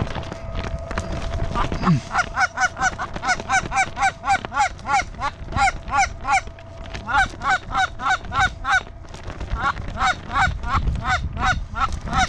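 Canada goose honks and clucks in a fast, even run of about four calls a second, with two short breaks partway through.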